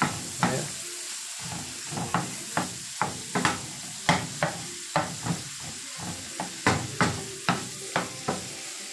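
Shrimp and garlic sizzling in oil in a frying pan, stirred with a wooden spoon that scrapes and knocks against the pan about twice a second.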